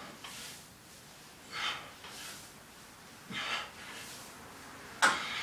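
A person breathing hard from the exertion of Tabata intervals: deep, hissing breaths about every one and a half to two seconds, with a sharper, louder exhale near the end.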